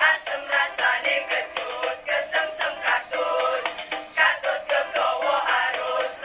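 Girls' choir singing an Indonesian ethnic-style choral piece in chorus over a quick, even percussive beat.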